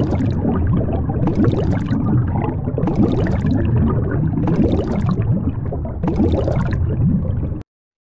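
Water sound, a steady underwater rush and gurgle with a hissing swell about every second and a half. It cuts off suddenly just before the end.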